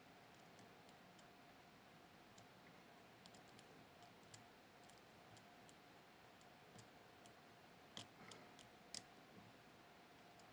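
Faint, scattered metallic clicks of a pick working the pins of a Miwa JC (Kaba Star Orion) dimple lock as its top pin rows are checked, with a few louder clicks about eight and nine seconds in.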